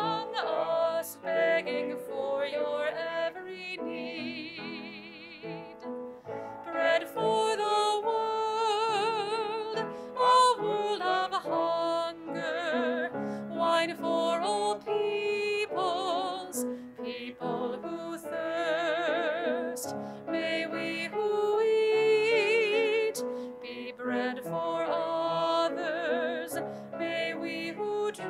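A woman singing a hymn with vibrato, accompanied by a grand piano.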